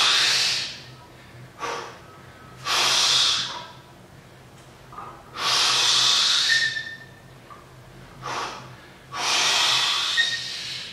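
A man's heavy, forceful breathing as he strains through a near-maximal set of barbell curls: four long, loud breaths about three seconds apart, with shorter, quieter breaths between them.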